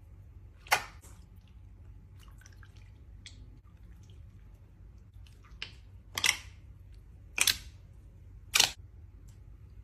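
Slime being pressed and pulled, giving sharp popping clicks: one loud pop about a second in, faint crackles, then three loud pops about a second apart near the end.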